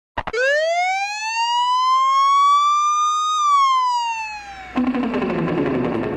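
Siren sound effect: one slow wail whose pitch rises for about three seconds, then falls away for over a second, preceded by a couple of clicks.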